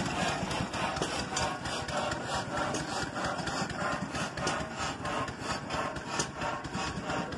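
Large old stationary engine, its flywheels about six feet tall, running slowly with a steady, even beat of a few strokes a second.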